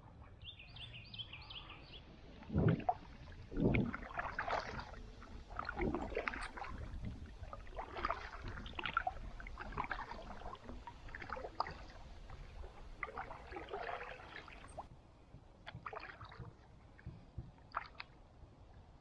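Kayak paddling: paddle blades dipping and splashing in the river at an uneven rhythm, with drips between strokes. There are two louder thumps about three seconds in, and the strokes thin out near the end.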